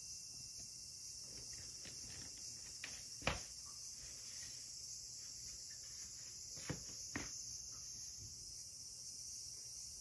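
Steady high-pitched chirring of insects, with a sharp knock about three seconds in and two fainter knocks around seven seconds.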